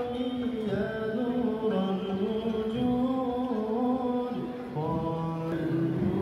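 A man's voice singing an Islamic nasheed over a sound system: a slow, wavering, chant-like melody of long held notes, with a short breath about four and a half seconds in before the next phrase.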